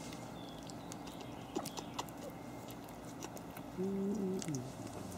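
Havanese puppy licking and chewing wet food from a stainless-steel feeding saucer: soft, scattered wet clicks and small taps. About four seconds in, a short low hum is held briefly and falls away at the end.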